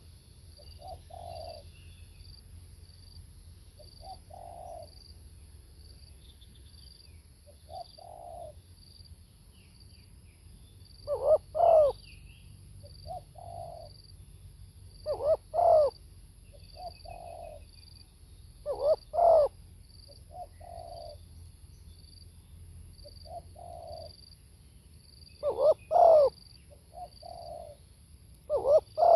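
Spotted dove cooing: repeated low coo phrases, with louder bursts every few seconds, about five in all, and quieter coos between them. A faint, fast high-pitched pulsing runs underneath.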